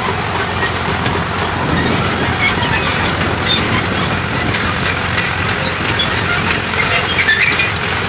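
Fordson Major County crawler tractor's engine running steadily under load as it pulls a plough through the ground.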